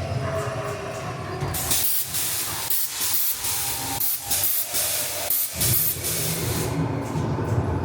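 A dark-ride car rumbling low along its track, then a loud hiss pulsing about two to three times a second for some five seconds before the rumble returns.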